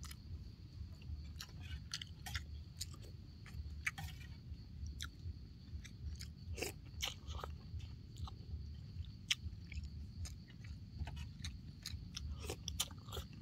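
A person chewing and eating rice noodle soup close to the microphone, with irregular wet smacks and clicks over a soft rhythmic chewing sound.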